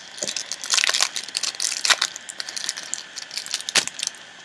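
Foil wrapper of an Adrenalyn XL football trading-card packet being torn open and crinkled by hand: irregular crackling with a few sharper snaps.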